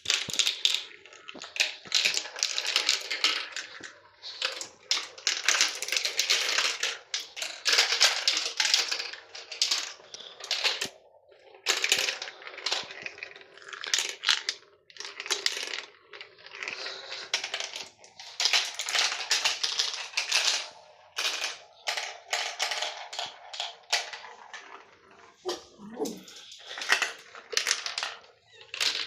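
Marbles rolling and clattering through a plastic marble run track: a dense rattle of clicks that comes in waves, with short pauses between runs.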